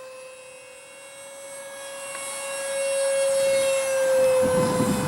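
Electric ducted fan of a Great Planes ElectriFly Syncro RC jet whining in flight: a steady high whine that grows louder as the jet approaches, loudest about four seconds in, then drops slightly in pitch as it passes by.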